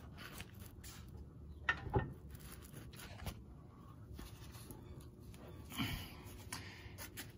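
Faint knocks and rubbing of metal parts being handled as a trailer axle and leaf spring are worked into position under a bracket, with a couple of slightly louder knocks about two seconds in and again near six seconds.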